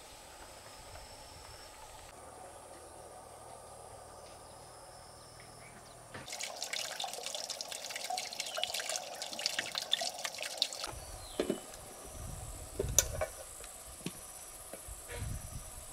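Water running or splashing for about four and a half seconds, starting abruptly a little after six seconds in, then a few scattered knocks and thumps.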